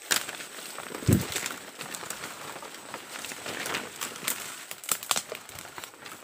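Footsteps crunching through dry leaf litter while leafy branches and twigs brush and crackle against the body, pushing through dense forest undergrowth. Irregular crackles throughout, with a heavier thump about a second in.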